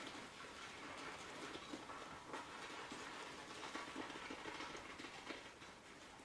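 Shaving brush whipping shave cream into a thick lather in a bowl: a faint, steady swishing full of small quick clicks and squelches.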